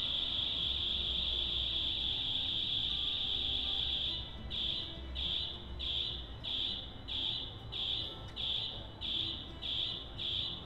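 Arduino-driven piezo buzzer giving a steady high-pitched tone. About four seconds in it starts pulsing on and off, about one and a half beeps a second.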